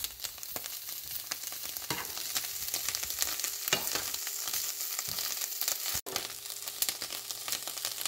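Canned-mackerel stir-fry sizzling in a frying pan while a metal spoon stirs and scrapes through it, with scattered clicks of the spoon on the pan. The mixture is near the end of its dry-frying, a couple of minutes from done.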